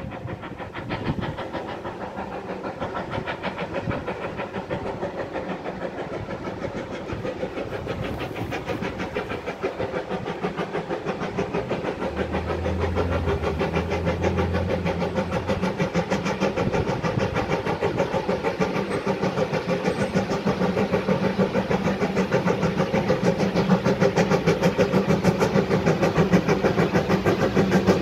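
Puffing Billy narrow-gauge steam locomotive working uphill, its exhaust beating in a fast, even rhythm and growing louder as it approaches.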